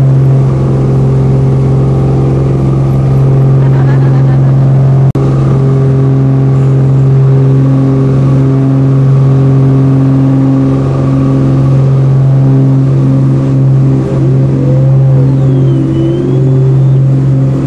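Small piston airplane engine running steadily at an even pitch, heard loud inside the cabin, with a brief click about five seconds in.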